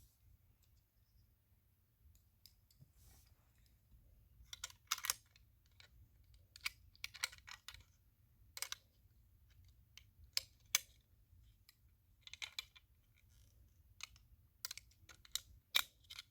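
Small parts of a 1/32 scale diecast toy car kit being handled, with irregular sharp clicks and taps coming in little clusters, the first after about four seconds.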